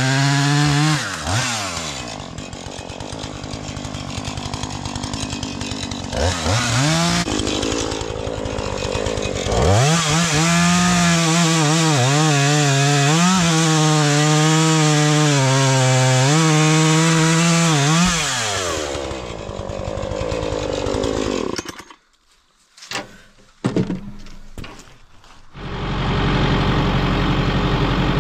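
Two-stroke chainsaw at full throttle that drops to idle about a second in, then runs flat out again for about eight seconds with its pitch sagging and recovering as it cuts wood, and falls back to idle. Near the end, after a brief gap, a heavier vehicle engine idles with a low steady rumble.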